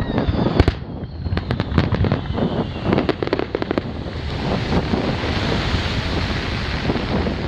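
Aerial fireworks shells bursting, with a rapid string of sharp cracks and bangs through the first three seconds or so and a faint falling whistle near the start. As the crackling dies away it gives way to a steady rushing noise.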